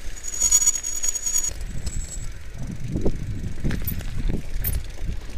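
Mountain bike rolling down a rough gravel dirt road: a steady rumble of tyres and wind, with rattling clicks from the bike over the stones. A high brake squeal runs for the first second and a half.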